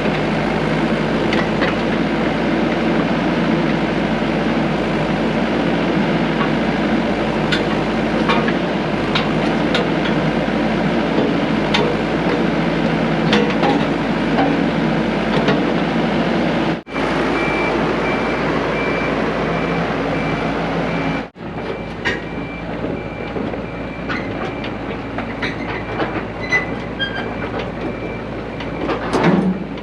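Heavy diesel equipment running, with a steady high reversing beeper sounding in even pulses from a little past the middle onward.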